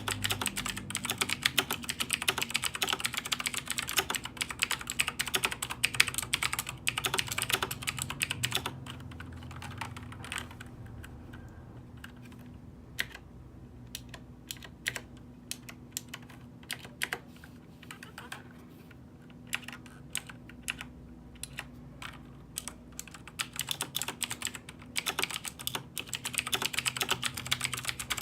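Typing on a computer keyboard. Rapid, dense keystrokes run for about the first ten seconds, thin out to scattered keystrokes in the middle, then turn rapid again near the end.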